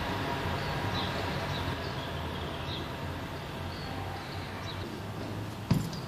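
Steady low background hum with faint, short, high bird chirps repeating every second or so, and one sharp knock near the end.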